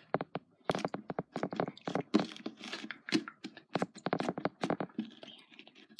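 Rapid, irregular crackling and clicking from something handled close to the microphone.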